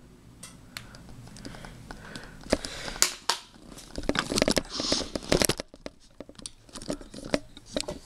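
Handling noise: rustling and irregular sharp clicks, busiest from about two and a half to five and a half seconds in.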